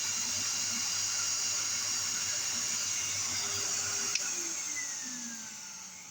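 Numatic Henry HVR200 vacuum cleaner running with a steady rush of air and a low hum. About four seconds in a switch clicks off and the motor winds down with a falling whine. The owner puts the not-quite-right sound down to dust in the motor.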